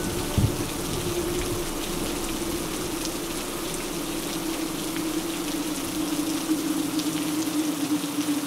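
Steady rain falling, with scattered drop ticks over a steady low hum.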